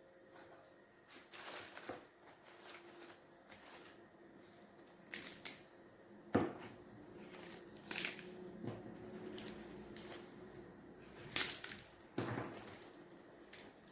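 Leafy vegetables being picked off their stems by hand: scattered rustles and small snaps, a few sharper ones, over a faint steady hum.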